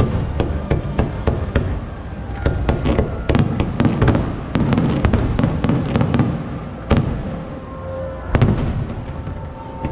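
Aerial fireworks going off in quick succession: a dense run of bangs and crackles from bursting shells, with two sharper, louder bangs about seven and eight and a half seconds in.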